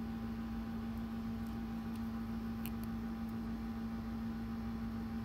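A steady low hum over even background noise, with a few faint small ticks.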